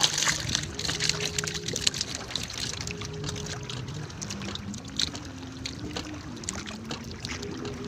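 Monofilament fishing net being hauled hand over hand out of the sea over the side of a boat, water dripping and splashing off the mesh, with a louder splash right at the start.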